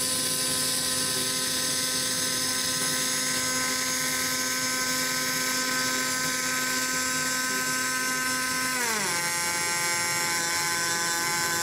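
Pulsed MIG welding arc on thick aluminium, from a Stahlwerk MIG 270 Puls Pro pulse program at about 200 A: a steady buzzing tone over a hiss. About nine seconds in the buzz slides down to a lower pitch and holds there, as the welder steps down from the boosted start current to the normal welding current.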